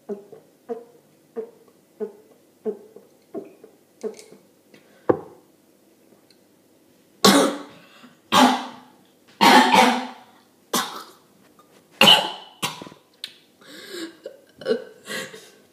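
A person gulping undiluted lime juice cordial in a run of about eight even swallows, then coughing hard in loud harsh bursts from the sourness of the straight cordial.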